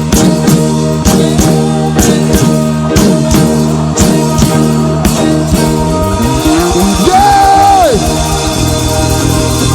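Live praise band music: a steady drum beat at about two strokes a second under held chords. A high note slides up, holds and drops away about seven to eight seconds in.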